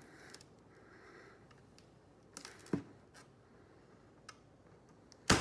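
Faint clicks and taps from work on a laptop's display lid, then one sharp snap near the end.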